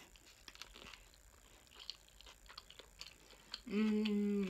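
Soft wet chewing and small mouth clicks of someone eating a sushi roll, then about three and a half seconds in a steady closed-mouth "mmm" hum lasting under a second, the loudest sound.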